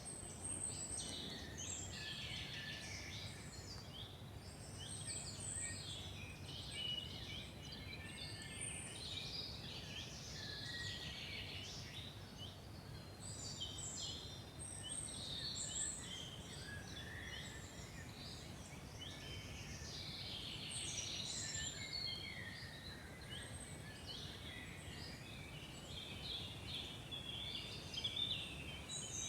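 Several birds singing at once, a dense chorus of short chirps, whistles and trills, over a low steady background hum.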